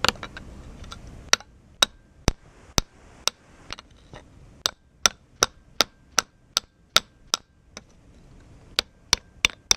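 Hammer striking a fresh weld on the metal frame about twenty times, roughly two blows a second with short pauses, knocking off slag. A faint ringing hangs between some of the blows.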